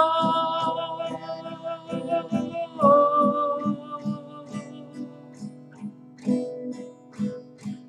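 A man singing a ballad in Spanish over a strummed acoustic guitar. He holds one long note, then a second long note a few seconds in, and near the end only the guitar plays.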